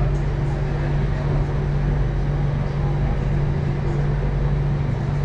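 Steady low hum and rumble inside a Singapore MRT Circle Line train car as it starts away from the station platform.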